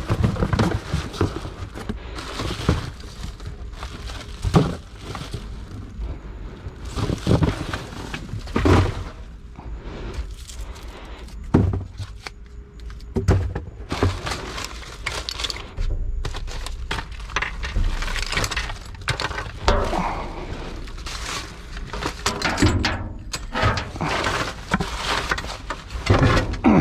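Rummaging through dumpster trash: a string of thuds, knocks and rattles as items are moved and dropped, with rustling in between.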